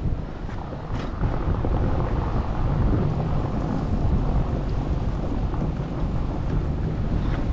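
Wind buffeting the microphone: a steady, loud low rumble that picks up after about a second.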